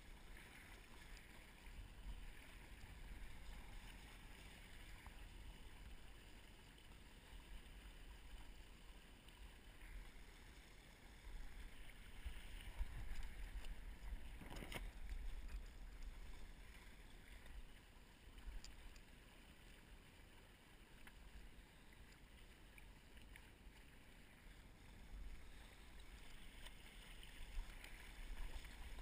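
Windsurf board sailing over choppy water: a faint steady rush of water and wind with a low rumble. A single sharp knock about halfway through.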